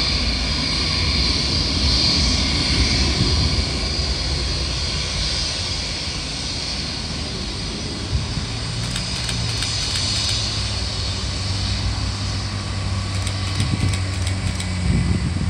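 Jet engines of a distant Airbus A320 running as it heads down the runway for takeoff, heard as a steady hiss over a low rumble.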